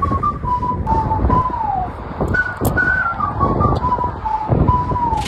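Whistled melody: a single clear tune stepping between held notes with short slides, over a low rumbling hiss, the whistled intro of a background music track.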